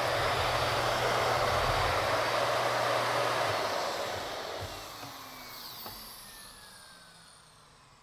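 Miele Art S930 upright vacuum cleaner running over a bare wood floor, then switched off about three and a half seconds in, its motor whine falling in pitch and fading as it spins down.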